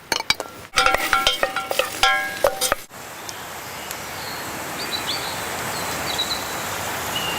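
Utensil clinks and knocks against cookware as chopped Alexanders stalks go into the pan over the first three seconds or so, then the hot hazelnut oil sizzling steadily as they start to fry, the sizzle slowly building.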